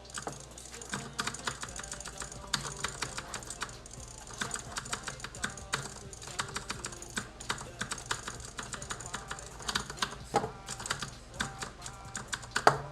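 Razer DeathAdder 2013 gaming mouse buttons clicking rapidly and irregularly, several clicks a second, with a louder burst of clicks near the end.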